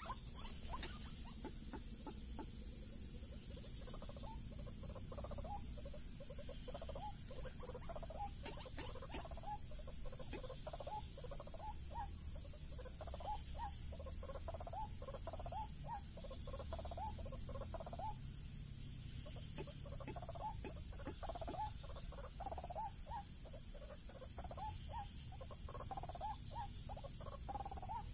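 White-breasted waterhen calls: quick, repeated croaking 'ruak-ruak' notes, coming in runs broken by short pauses, over a steady high-pitched whine.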